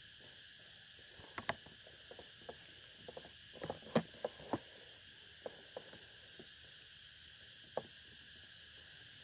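Scattered crackles and snaps of someone moving through dry forest undergrowth, loudest about four seconds in, over a steady high-pitched drone of forest insects.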